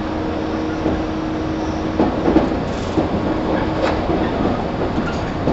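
Shinano Railway 115 series 1000-subseries electric train (KuMoHa 115-1005) running, heard from inside the car: a steady rumbling hum with a held drone from the motors and gears, and a few sharp rail-joint clicks about two to four seconds in.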